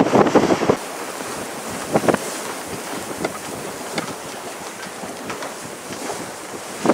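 Wind buffeting the microphone over choppy water, then, after a cut about a second in, a quieter steady hiss of wind and water broken by a few short splashes.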